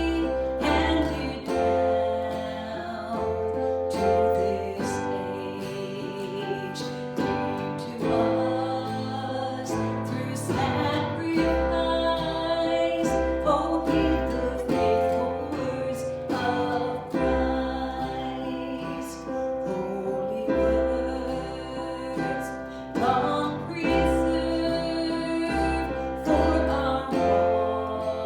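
A song with singing over guitar and a bass line, playing without a break.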